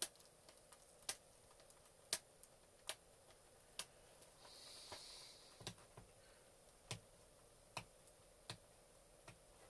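Quiet room with faint, irregular clicks and taps about once a second. From about five and a half seconds in they come with a dull low thump, and a short soft hiss comes just before them.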